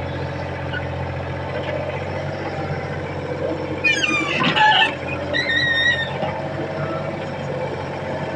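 Excavator's diesel engine running steadily. A few short high-pitched tones come in a little past the middle.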